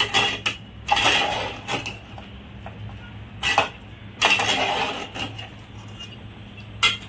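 Perforated metal spatula scraping and clanking against an aluminium cooking pot as chicken korma in a thick yogurt gravy is stirred: about half a dozen irregular strokes over a low steady hum.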